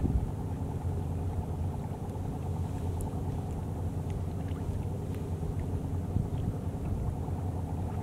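Cabin cruiser's engine running steadily as the boat moves slowly across the water: an even, low drone.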